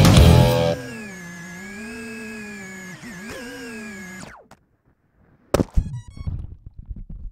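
Rock music cuts off, and a small FPV cinewhoop drone's electric motors whine steadily, wavering in pitch, then drop sharply and stop. After a short silence comes a sharp knock and some scattered clattering.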